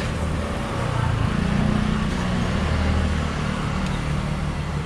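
A motor vehicle's engine running close by: a low hum that swells about a second in and eases off after about three and a half seconds, over steady street noise.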